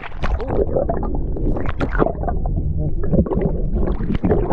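Water sloshing and bubbling around an action camera pushed under the surface, a muffled low rumble broken by many short splashes.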